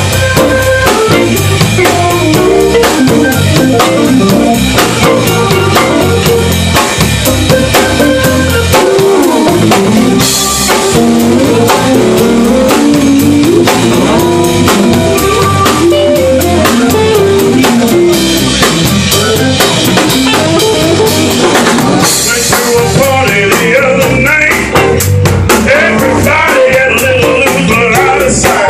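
Live blues band playing, with a drum kit keeping a steady beat under guitar.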